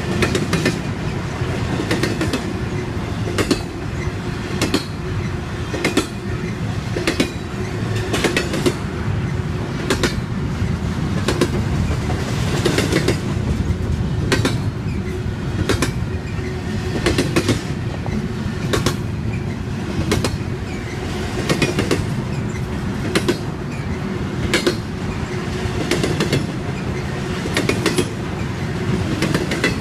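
CSX double-stack intermodal freight cars rolling past: a continuous rumble of steel wheels on rail, with a steady low tone, and sharp clicks about once or twice a second as the wheelsets cross rail joints.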